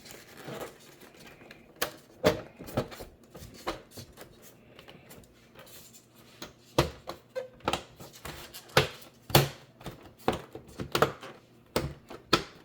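Irregular sharp clicks and knocks of monitor parts being handled during reassembly, scattered throughout, with a quieter lull in the middle and denser knocks after it.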